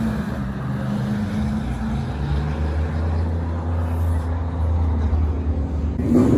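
Pickup truck's engine running at a steady pitch while the truck slides through a donut on the street, then revving up sharply near the end.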